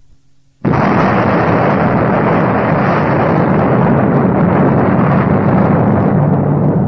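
Faint tape hum, then about half a second in a loud, dense wall of rumbling noise cuts in abruptly and holds steady: the noisy opening of a track on a lo-fi black metal demo cassette.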